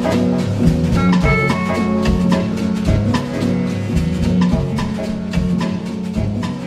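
Dance music with a steady drum beat and pitched percussion.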